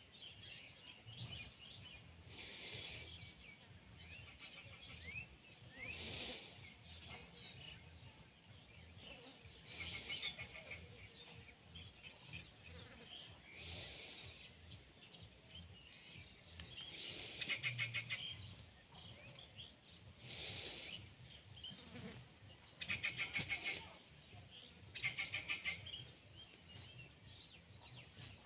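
Birds chirping and trilling in short repeated bouts every few seconds, over a faint low background rumble.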